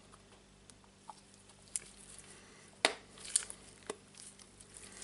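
A Milwaukee M18 FID2 impact driver's plastic front cover being pressed by hand onto its greased metal gear housing: small rubbing and rustling with a few sharp clicks of plastic and metal seating, the loudest about three seconds in.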